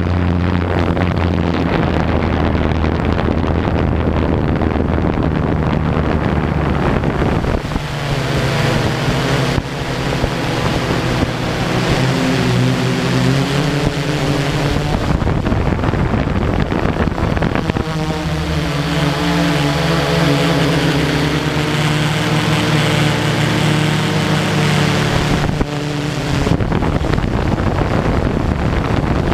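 Drone propellers and motors buzzing with wind on the microphone, the tones shifting in pitch several times as the throttle changes.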